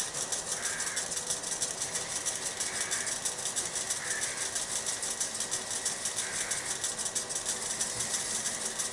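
Wood lathe running at slow speed, with a fast, even rhythmic rustle as linseed oil is rubbed onto the spinning wooden lid.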